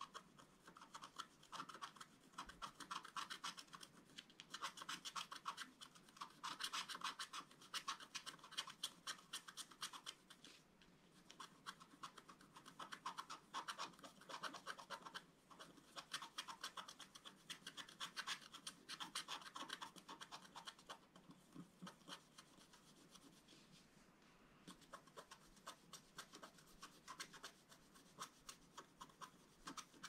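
Pointed wooden stylus scraping the black coating off a scratch-art page in quick, short, repeated strokes, in runs with brief pauses; the strokes grow sparser near the end.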